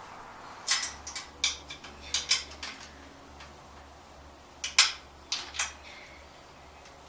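A small metal assembly wrench clinking and clicking against bolt heads and a patio table's metal frame as the bolts are tightened. A quick run of sharp taps lasts about two seconds, and a second, louder cluster of clinks comes about halfway through.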